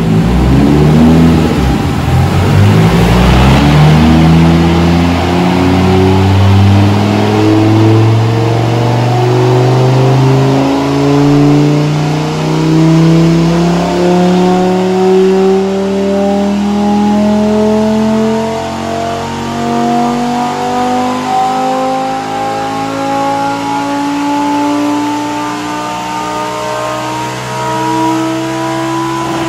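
Lamborghini Huracán Performante 5.2-litre V10 running on a chassis dyno, its pitch climbing slowly and steadily through one long pull.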